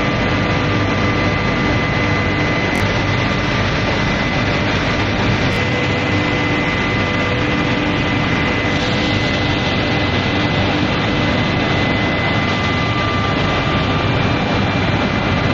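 Induction heating furnace running steadily: a loud, even rush of machine noise with a thin high whine and a few fainter steady tones held through it.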